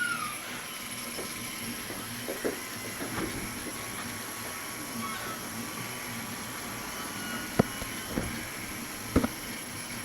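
Hobby CNC machine running, its motors giving a steady hum with faint whining tones that shift in pitch as the axes move. Several sharp clicks come near the end.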